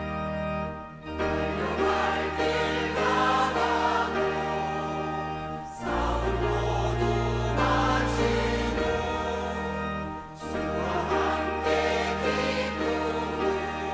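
A church choir sings a Korean marching hymn in phrases, accompanied by piano and organ holding sustained low bass notes.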